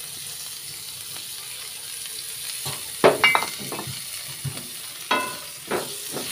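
Dried fish sizzling in hot oil in a wok, with a steady hiss. From about halfway through, a metal utensil knocks and scrapes against the pan several times with short metallic rings as the fish is stirred.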